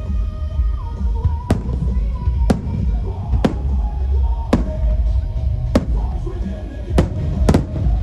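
Aerial firework shells bursting high overhead: about seven sharp bangs roughly a second apart, over a continuous low rumble. Music with a held melody plays underneath.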